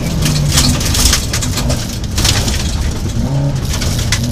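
Rally car heard from inside the cabin at speed on a gravel stage: the engine runs under load while loose gravel rattles and pings against the underbody and wheel arches. The engine note drops in the middle and comes back stronger near the end.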